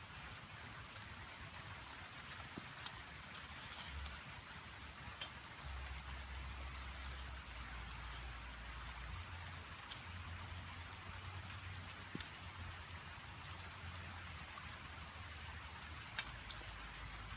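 Rain falling steadily in forest, an even hiss with scattered sharp drops striking close by.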